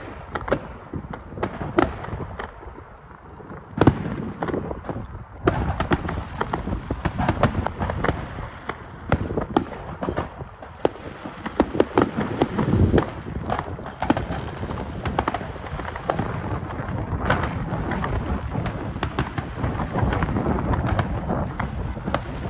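Aerial fireworks going off: many shell bursts and crackles in quick succession, growing into a near-continuous barrage in the second half.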